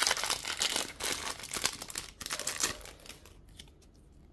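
Foil trading-card pack crinkling as it is opened: a dense crackle that dies away about three seconds in.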